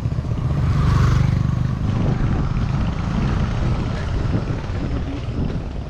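Engine of a motor vehicle running close by, with a fast low pulsing, loudest about a second in and then fading away.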